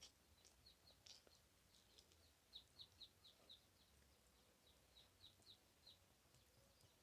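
Faint, quick bird chirps repeating two or three times a second over near silence, with a few faint clicks.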